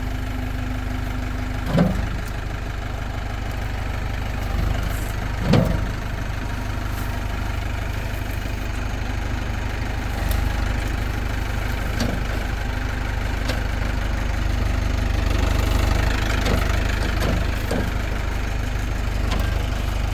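Tractor engine running steadily while the front loader is worked to seat a bucket on its quick-attach, which is not yet locked in. Two loud knocks come about two seconds and five and a half seconds in, with a few fainter knocks later.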